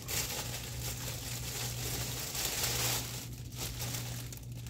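Clear plastic packaging bag crinkling as a folded green-screen backdrop cloth is handled and lifted in it. The rustle is densest for the first three seconds, then thins to scattered crackles over a steady low hum.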